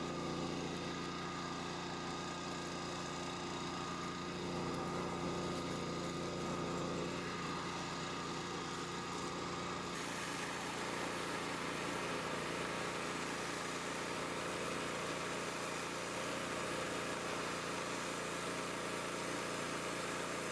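Pressure washer engine running steadily while a rotary surface cleaner cleans concrete. About halfway through the sound changes to a hissier water spray from a four-nozzle water broom, with the engine still running underneath.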